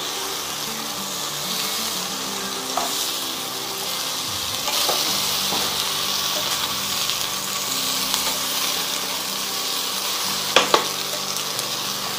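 Fried bread pieces and onions sizzling in a nonstick pan while being stirred with a steel slotted spoon, with the spoon clicking against the pan a few times, twice sharply near the end.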